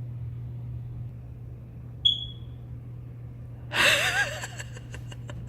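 Smoke alarm giving one short, high-pitched warning chirp about two seconds in; it keeps chirping although its batteries were just replaced. A brief vocal sound follows about four seconds in, over a steady low hum.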